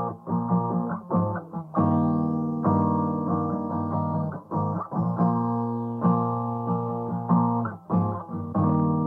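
Background music: strummed guitar chords.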